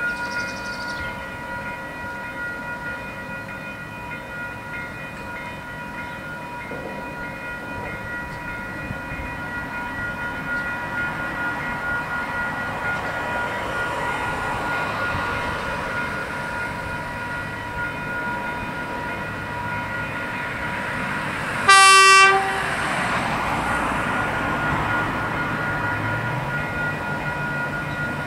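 KiwiRail track evaluation car EM80 approaching a level crossing, with one short, loud blast of its horn about three-quarters of the way through and its engine note building as it nears. Crossing alarm bells ring steadily throughout.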